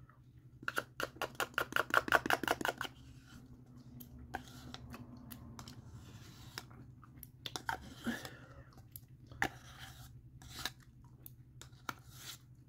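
Metal spoon scraping quickly around the inside of a plastic yogurt cup for about two seconds, a rapid run of scrapes. Then come scattered single clicks and taps of the spoon against the cup, along with eating mouth sounds.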